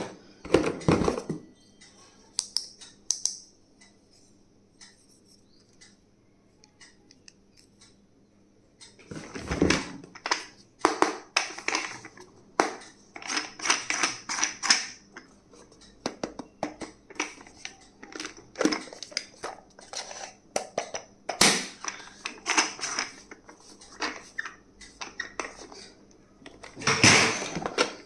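Stationery and its packaging being unboxed and handled: a run of sharp clicks, taps and crinkly plastic rustles. A lull of about five seconds comes after the first few seconds, then the handling grows busier.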